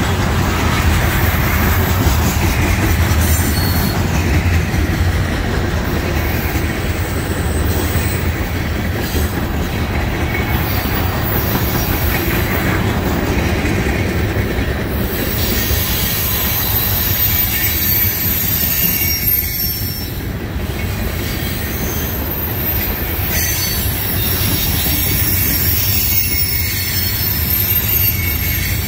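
Freight train of container flatcars loaded with trash containers rolling past close by: a steady rumble of steel wheels on rail with high-pitched wheel squeal, more prominent from about halfway through.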